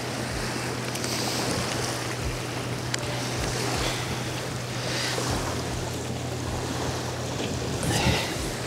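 Small waves of an incoming tide washing on the shore, surging softly every few seconds, with wind buffeting the microphone and a steady low hum underneath.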